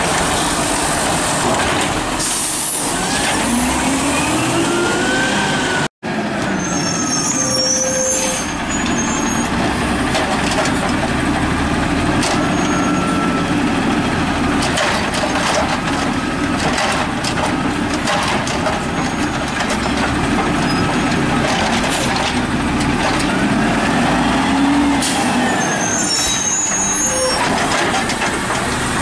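Peterbilt 320 automated side-loader garbage trucks working: first a diesel Amrep running as its hydraulic arm lifts and dumps a cart, then, after an abrupt break about six seconds in, a CNG Scorpion pulling up and running as its arm reaches for a cart. The engine note rises and falls in long swells as the hydraulics work.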